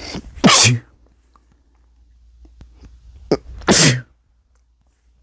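A person sneezing twice, about three seconds apart, each sneeze a short, loud burst. The sneezes are deliberately induced.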